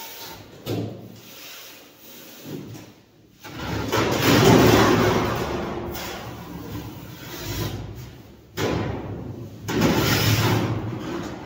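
Large stainless steel sheet being handled and worked, giving a series of scraping, rumbling metal sounds. The loudest comes about three and a half seconds in and fades slowly, with shorter bursts near the end.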